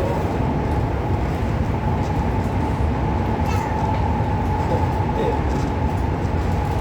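Alstom Movia R151 metro train heard from inside the carriage while running between stations: a steady low rumble of wheels on rail with a high whine held through it, and a few brief squeaks about halfway.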